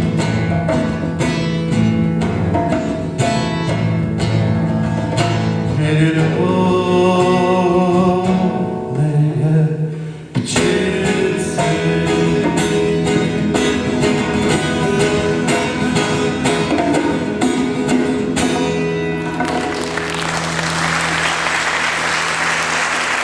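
A man singing to a strummed acoustic guitar, a live song at its close. Applause breaks out under the last held note near the end.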